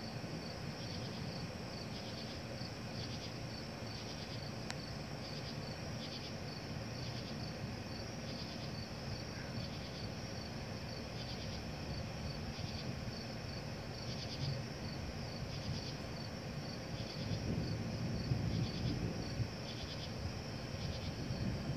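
Night insects chirping steadily in short rapid pulsed phrases that repeat about once or twice a second, over a low rumbling background that grows a little louder near the end.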